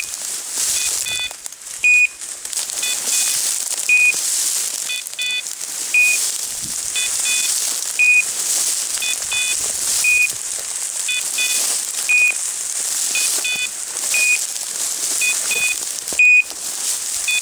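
Dogtra beeper collars on pointing dogs sounding in point mode: a short beep about every two seconds, with a second pattern of quick double beeps falling between them, over a steady hiss. The beeping signals that the dogs have stopped and are on point.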